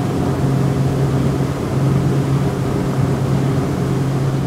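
Boat motor running steadily at cruising speed, a low even drone under a constant rushing noise as the boat moves along the water.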